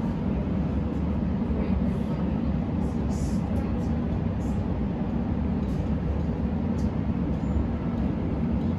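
Steady low rumble of a moving electric suburban train, heard from inside the carriage, with a few faint ticks over it.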